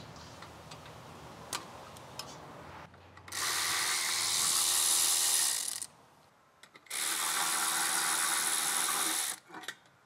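Power ratchet running in two steady bursts of about two and a half seconds each, spinning out the 16 mm bolts of a rear brake caliper bracket. A few faint clicks come before the first burst.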